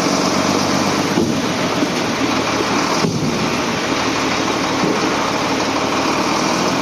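Sinotruk heavy truck's diesel engine running steadily, a dense, even mechanical noise with a low engine hum underneath.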